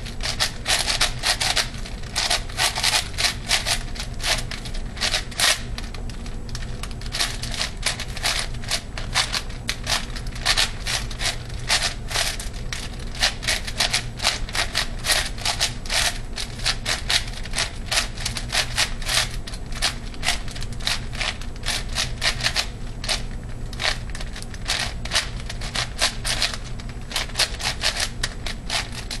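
ShengShou 8x8x8 puzzle cube being turned fast during a speedsolve: a continuous rapid clatter of plastic layers clicking and clacking, broken by brief pauses every few seconds.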